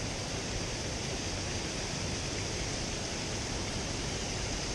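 Steady, even rush of water from a waterfall and river.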